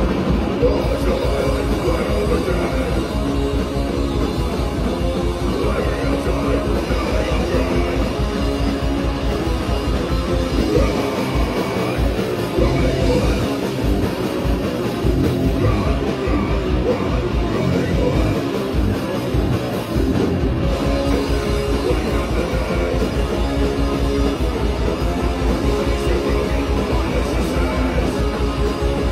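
A heavy rock band playing live and loud: distorted electric guitars, bass and a drum kit driving a fast, steady kick-drum pulse. About eleven seconds in the beat breaks into a slower, uneven section, and the fast pulse comes back around twenty seconds in.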